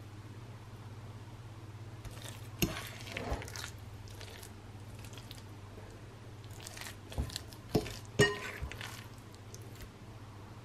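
Metal fork stirring and pressing a stiff oat cookie mixture in a ceramic mixing bowl: scattered clinks and scrapes of the fork on the bowl, the sharpest about two and a half seconds in and again near eight seconds, over a steady low hum.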